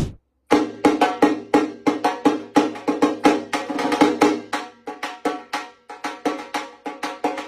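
Dhaak, the Bengali barrel drum of Durga Puja, beaten with sticks in a fast, dense rhythm of sharp strokes. It breaks off for about half a second near the start, then a new rhythm pattern begins.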